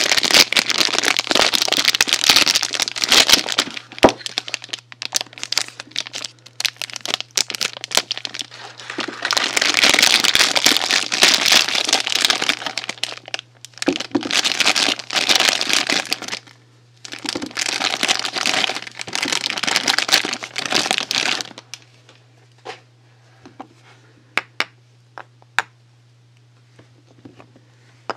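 Packaging crinkling and rustling as soaps are unwrapped by hand, in four long bursts over about twenty seconds, followed by a few scattered light clicks and taps.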